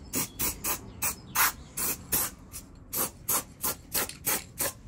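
Aerosol can of zinc-rich weld-through primer sprayed in many short bursts, hissing on and off about three times a second.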